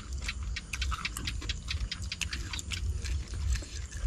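A person chewing food with the mouth open, giving a run of short wet smacking clicks.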